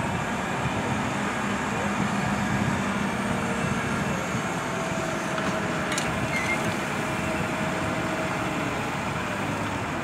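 New Holland T7.270 tractor's six-cylinder diesel engine running steadily, with a light click about six seconds in.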